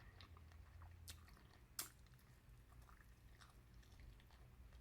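Faint close-up chewing: a person eating, with scattered soft wet mouth clicks and one sharper click a little under two seconds in.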